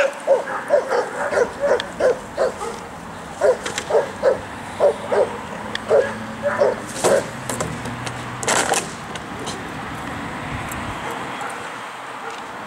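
Doberman barking repeatedly, about two to three short barks a second, for the first eight seconds. A brief loud noisy burst comes about eight and a half seconds in, then the barking stops.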